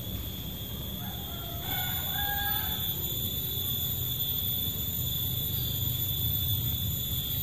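A rooster crowing once, from about one to three seconds in.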